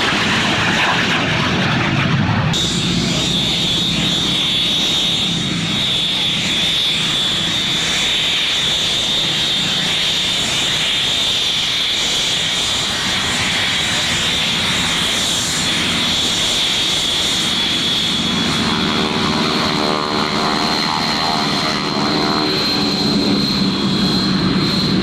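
F-86 Sabre's turbojet running with a steady high-pitched whine; about three-quarters of the way through a wavering, shifting rumble joins in as the jet passes by.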